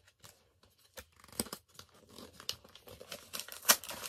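A foil Pokémon booster pack wrapper being torn open and crinkled by hand: irregular sharp crackles that come thicker near the end.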